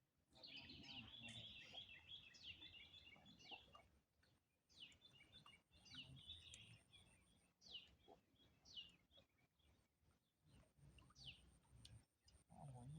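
Faint birdsong: busy chirping and quick downward-sliding whistled notes, repeated every second or two.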